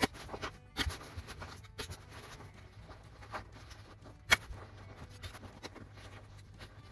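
Hand staple gun firing staples through fabric into a cushion block: a sharp clack right at the start, another just under a second in, and the loudest about four seconds in, with fabric rustling between as the cover is folded.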